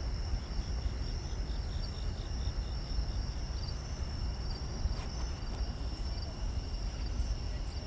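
Night insects, crickets among them, trilling steadily in high tones, one with a pulsing chirp of about four a second in the first half, over a low steady rumble.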